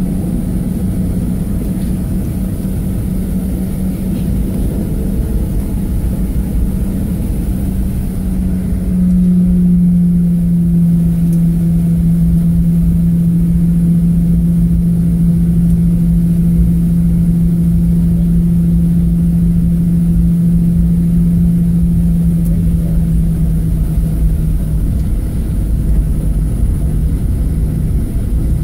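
Boeing 737-700's CFM56-7B27 jet engines running at taxi power, heard inside the cabin from a window seat over the wing: a steady drone with a low hum that gets a little higher and louder about nine seconds in.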